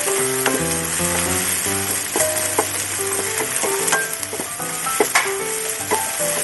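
Food sizzling as it fries in a pan, with a few sharp clicks of stirring in it, under light background music of plucked notes.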